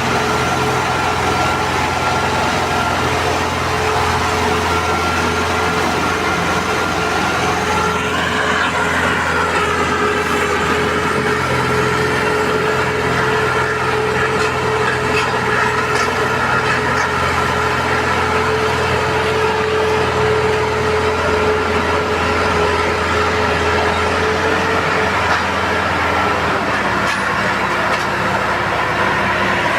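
Combine harvester running steadily: a heavy engine hum with steady whining tones above it. The pitch rises and dips briefly about eight seconds in, and the deepest part of the hum drops away near the end.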